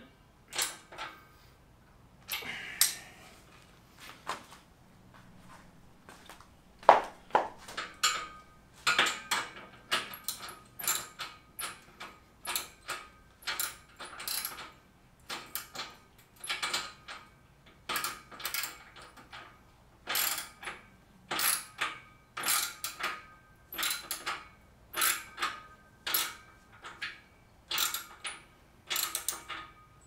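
Ratchet wrench working a bolt on a steel dumbbell rack. After a few scattered clicks and a sharper knock, there is a short burst of clicks on each back-swing, repeating steadily about once a second for the rest of the time.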